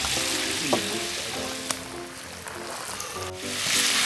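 Hot oil in a pot deep-frying over a campfire, with a steady sizzling hiss, and background music playing over it.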